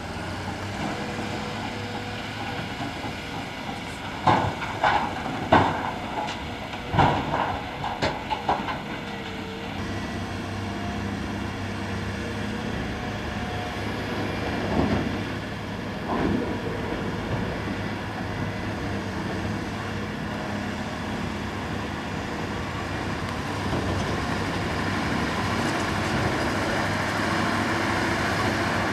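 Mercedes-Benz SK 3544 dump trucks running on a dirt haul road, a steady heavy diesel engine hum throughout. A cluster of loud clattering bangs comes about four to nine seconds in, two more around fifteen and sixteen seconds in, and the engine grows louder near the end as a truck comes closer.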